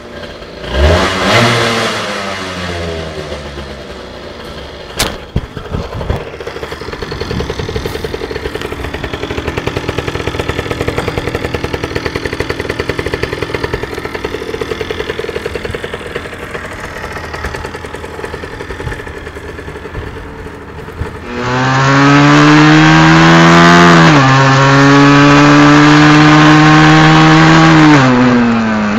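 Aprilia Tuono 50's 50 cc two-stroke single through an aftermarket carbon silencer: a short blip of the throttle, then idling with a fast, even putter. Later it is much louder under load while riding, pitch rising, dropping once at a gear change, rising again, then falling off near the end.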